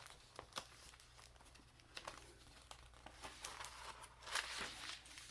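Paper pages and cardstock of a handmade junk journal rustling and crinkling as they are turned and handled, with small ticks and a louder rustle about four seconds in.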